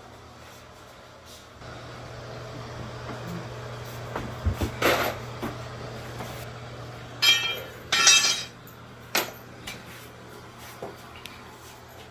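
Construction work in a room being renovated: a few knocks, two louder clattering bangs about halfway through, and a sharp knock soon after, over a steady low hum.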